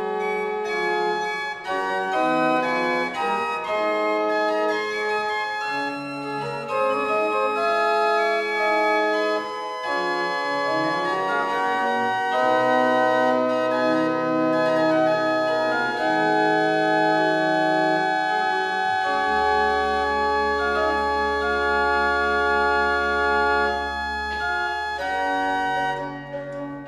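Pipe organ playing music with several lines of held notes moving at once. A deep pedal note comes in about two-thirds of the way through and holds for several seconds, and the playing pauses briefly just before the end.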